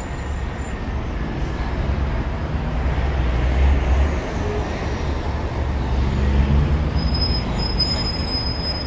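Steady low rumble of vehicle traffic with hiss over it, and a faint thin high tone near the end.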